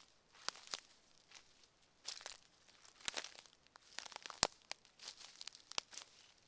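Footsteps crunching along a forest path, an uneven run of crackling steps with a few sharper cracks, the loudest about four and a half seconds in.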